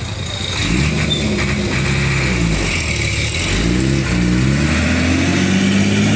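Old overloaded truck's engine revving up and down several times, then held at steady higher revs near the end, as the truck struggles under tens of tonnes of rice.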